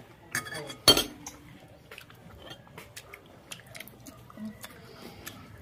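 Spoon clinking against a ceramic plate: one sharp clink about a second in, then light scattered clicks and taps.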